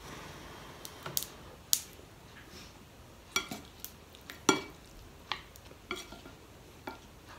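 A spoon clinking and scraping against a bowl while scooping up mung bean stew: about ten sharp, scattered clinks, a few ringing briefly.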